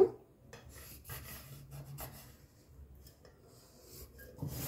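Felt-tip marker scratching and rubbing on kraft paper as it traces around the rim of a plate held down on the paper, in faint, irregular strokes. A louder rub near the end.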